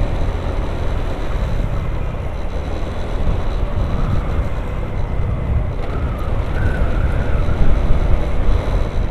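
Steady wind rush on the microphone mixed with the running and road noise of a Honda Vario 150 scooter riding along.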